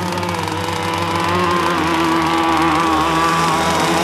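Twin electric motors of a 6S RC racing boat whining as it runs at speed, the pitch wavering slightly up and down with throttle and turns.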